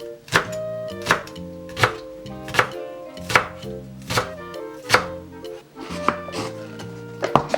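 Kitchen knife chopping green onion on a cutting board, one sharp stroke about every three-quarters of a second.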